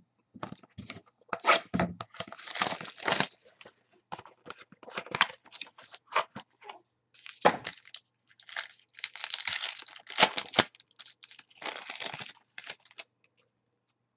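Wrapping of a sports trading card box and pack torn open and crinkled by hand, in an uneven run of rips and crackles.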